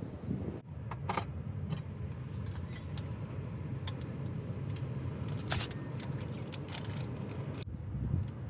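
Scattered clicks and clinks of small hard objects being handled, over a steady low rumble of strong wind.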